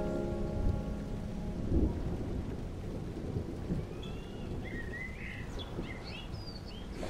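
Ambient soundscape track: a steady low rumble with a hiss over it, and a few bird chirps from about four to six and a half seconds in. The tail of an organ chord dies away in the first second or so.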